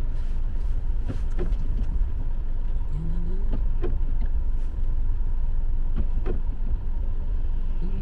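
Steady low rumble of a car's cabin while driving slowly on a wet road, with the windshield wiper sweeping across the rain-spotted glass. A few short sharp clicks sound at uneven intervals.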